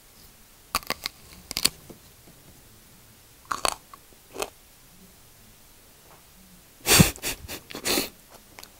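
Wet mouth sounds of eating raw aloe leaf, biting and chewing the slimy gel, in short separate bursts with the loudest pair near the end.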